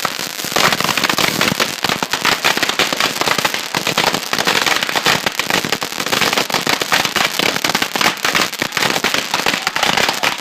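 A long, unbroken string of firecrackers going off, a dense rapid crackle of pops that gets louder about half a second in.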